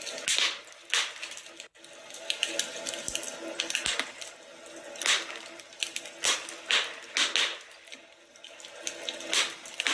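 Wood fire crackling, with irregular sharp pops over a soft steady hiss. The sound cuts out for an instant a little under two seconds in.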